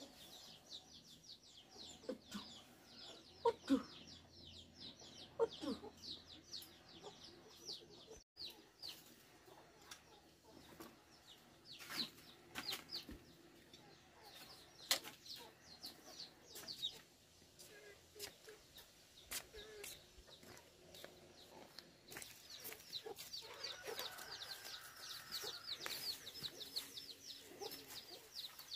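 Chickens clucking, with a dense run of short, high chirps throughout.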